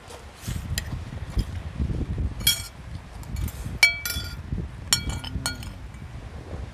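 Metal cutlery clinking against ceramic plates and a rice bowl during a meal: several sharp, ringing clinks, the clearest about two and a half seconds in and in two quick clusters near four and five seconds, over a low rumble.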